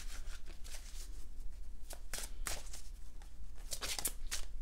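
Oracle cards from a Mary, Queen of the Angels deck being shuffled and handled: soft, scattered papery flicks and rustles, more of them near the end.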